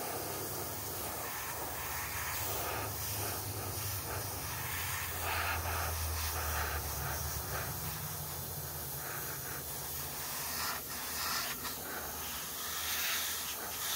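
Airbrush spraying paint: a steady hiss of compressed air, with a low hum underneath that steps up in pitch about halfway through.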